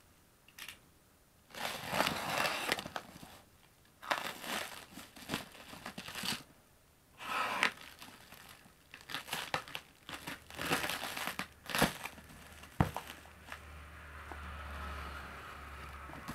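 Clear plastic stretch wrap around a cardboard parcel being crinkled, torn and cut open by hand, in bursts of rustling a second or two long with short pauses between. A couple of sharp clicks come about three-quarters of the way through.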